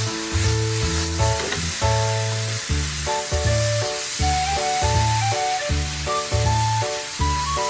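Yakisoba stir-frying in a hot pan, a steady sizzle, under background music with a rhythmic bass line.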